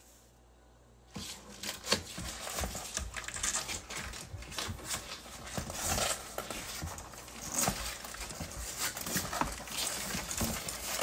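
Pet turtles' claws scratching and scrabbling on the sides of a cardboard box as they try to climb out: an irregular run of small scrapes and clicks starting about a second in.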